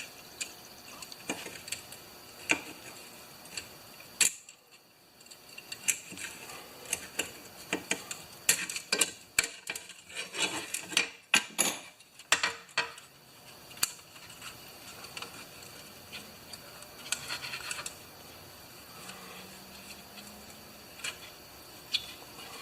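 Metal clicks and clinks at uneven intervals as the parts of a mower's recoil starter, its coil spring and pulley, are handled and worked by hand. The clicks come thickest about halfway through.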